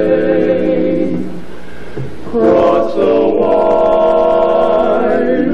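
Male barbershop quartet singing a cappella in close four-part harmony, holding chords. The sound thins and drops in level for about a second, then a louder chord comes in about two and a half seconds in and is held.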